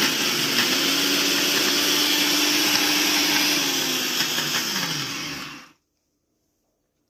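Braun JB 3060 jug blender's motor running at top speed on the turbo pulse button, its empty glass jar whirring loudly and steadily. The button is released: about five seconds in the motor winds down with a falling pitch and stops.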